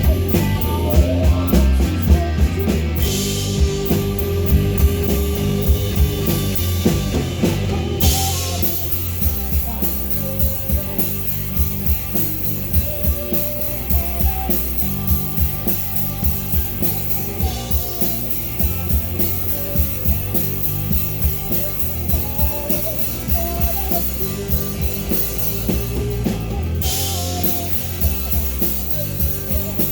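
Rock band playing live: a drum kit keeping a steady beat under electric guitars and bass.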